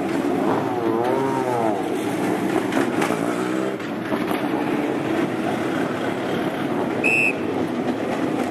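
Racing car engine revving, its pitch rising and falling in quick blips in the first couple of seconds and climbing again a little later, over a steady haze of pit-lane noise. A short high beep sounds near the end.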